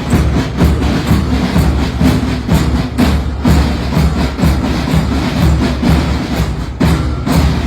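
Ghosh marching band playing, its drums keeping a steady march beat.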